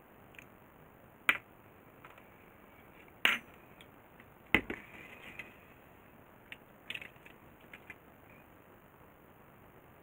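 Drinking glass, plastic jug and teaspoon knocking and clinking on a wooden desk as they are handled and set down. There are three sharp knocks in the first half, the last the heaviest, then a few lighter ticks.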